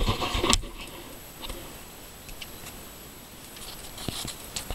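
A brief clatter of the camera being handled at the start, then hens pecking and scratching in wood shavings, with light scattered ticks that grow more frequent near the end.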